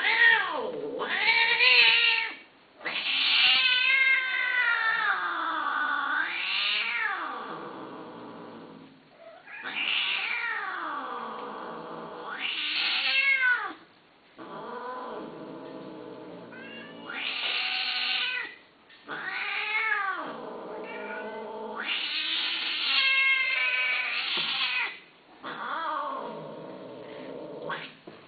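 Long-haired cat yowling over and over: drawn-out calls that slide up and down in pitch, each a second or more long, with short breaks between.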